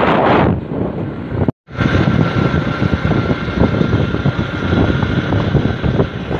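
Wind buffeting the microphone of a phone carried on a moving motorcycle, with the motorbike's engine running underneath. The sound cuts out completely for a moment about a second and a half in, then the rumble and wind resume.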